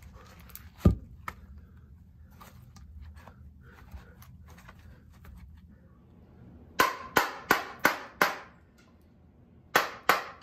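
A heavy thump about a second in, then, later on, a wooden mallet striking a chisel as it is driven into a green white oak block, about three sharp strikes a second, with a short pause before the strikes resume.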